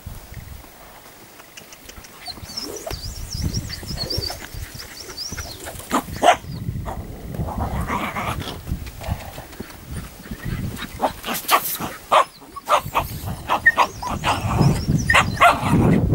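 Small dog barking repeatedly, starting about six seconds in and coming faster toward the end, over the low thud of a horse's hooves cantering on sand.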